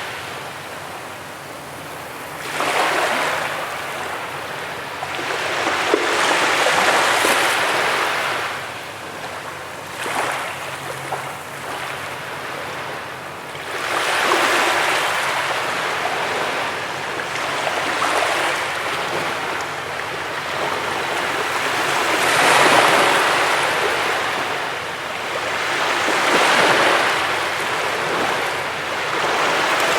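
Ocean waves breaking and washing up on a beach. The surf swells and fades every few seconds, with no steady rhythm.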